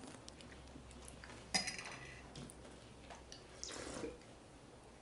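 Faint scattered crackles of popping candy in the mouth, a single sharp clink about one and a half seconds in, then a short gulp of Coca-Cola from a plastic bottle near the end.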